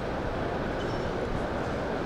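Steady background hubbub of a crowded exhibition hall, many distant voices blending into one even noise.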